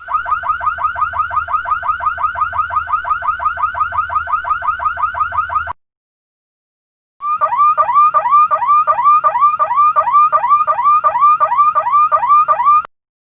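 Electronic alarm sounding in two patterns: first a fast warble of repeating pitch sweeps, about seven a second, for nearly six seconds; then, after a short silence, a slower pattern of about three sweeps a second for about six seconds, cutting off suddenly.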